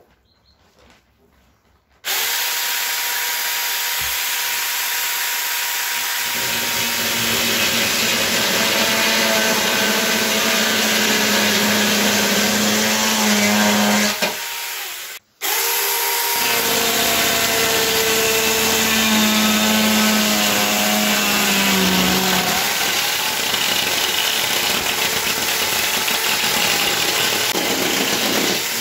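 Small handheld electric chainsaw cutting through an OSB floor sheet. It starts about two seconds in and runs loudly under load, stops briefly about halfway, then starts again and keeps cutting until the end.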